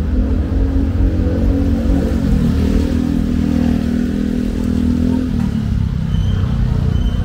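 A motor vehicle's engine running loudly. Its pitch steps up about two seconds in and drops back a little after five seconds.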